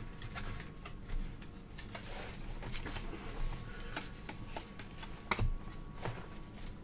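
Trading cards and packs being handled on a table: scattered light clicks and taps, with one somewhat louder tap about five seconds in.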